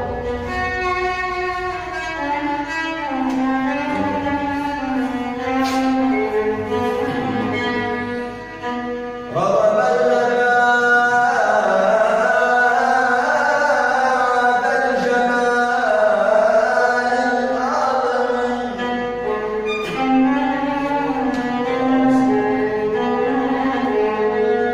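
Music: a male voice singing an Arabic mawwal, long ornamented lines without a beat, over a steady sustained accompaniment. It grows louder about nine seconds in.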